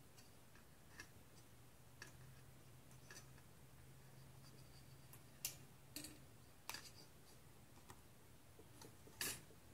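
Small, sharp ticks and clicks of thin etched-steel model-kit pieces being bent and handled between the fingers, coming irregularly, about eight in all, with the loudest about halfway through and near the end.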